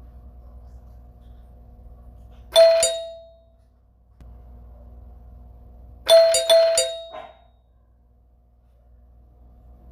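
Doorbell ringing: one ring about two and a half seconds in, then a quick run of about four rings around six to seven seconds in, over a faint steady hum.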